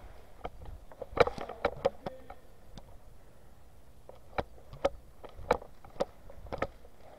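Footsteps on gritty concrete: short sharp scuffs and crunches, irregular at first, then settling into a walking pace of about two steps a second.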